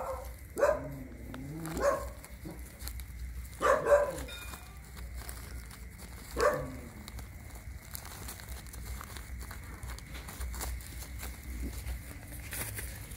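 Dog barking: four short, sharp barks with falling pitch in the first seven seconds, the third a quick double.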